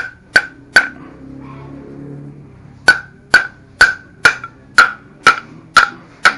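Hammer tapping a 6203 ball bearing to drive it home in a Honda C70 engine case, each blow giving a sharp metallic ring. There are three quick taps, a pause of about two seconds, then eight more at about two a second; the bearing is not seating fully.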